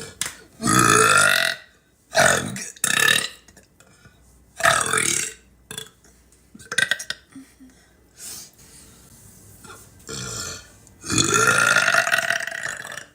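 A woman burping: a series of about six loud belches of different lengths, with short pauses between them. The longest, about two seconds, comes near the end.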